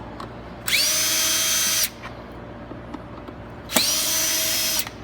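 Power drill backing screws out of the pressure washer's plastic shell: two bursts of about a second each, one near the start and one near the end. Each spins up with a rising whine, runs steadily, then stops abruptly.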